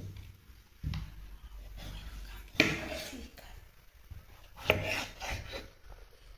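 Rough scraping and rubbing of white eggplant pieces and a kitchen knife on a wooden cutting board, in three strokes: a short one about a second in, then two louder ones near the middle and about three-quarters through.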